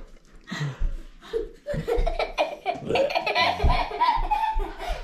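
A man laughing.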